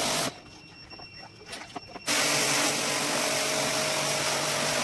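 Portable electric jet pump (pressure washer) used for AC cleaning, running with a steady hum and spray hiss. It cuts off just after the start and comes back on about two seconds in, running steadily after that.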